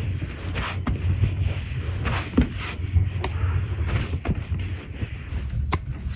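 Dough for qutab being kneaded by hand on a wooden board: dull, uneven low thudding from pressing and folding, with a few sharp little clicks.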